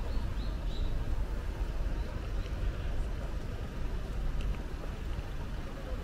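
Busy city street ambience: a steady low rumble with a faint murmur of people and a few faint high chirps near the start.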